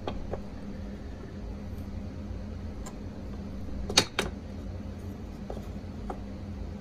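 Wooden boards knocking against a router-table box joint jig as they are set in place, a few light knocks with a sharper pair about four seconds in, over a machine's steady hum.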